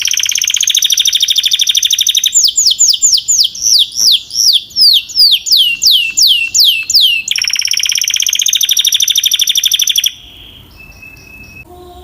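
Canary singing: a fast rolling trill, then a run of quick falling notes at about two or three a second, then another fast trill that stops abruptly about ten seconds in.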